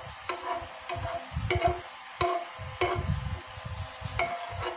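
Metal spoon scraping and knocking against a stone-coated frying pan while stirring a thin layer of cooking oil as it heats, with several sharp clinks at irregular intervals.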